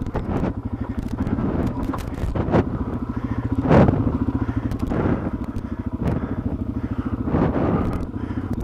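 Dual-sport motorcycle engine running with a fast, even pulse as the bike rides a slick muddy trail, swelling louder about four seconds in. A few sharp knocks and scrapes come through, the loudest near the middle.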